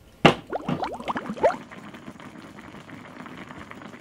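Spicy mala hotpot broth bubbling at a boil in a shallow pan on a portable gas burner. A sharp knock comes just after the start, then bubbles pop in quick succession for about a second before settling into a steady, softer simmer.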